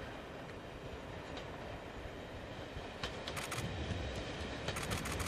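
Class 101 diesel multiple unit approaching on the line, its running noise growing louder. Quick runs of clicks come about three seconds in and again near the end, typical of the wheels passing over rail joints.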